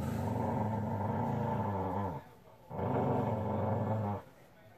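A dog growling in two long, low growls, the first lasting about two seconds and the second about a second and a half, with a short pause between.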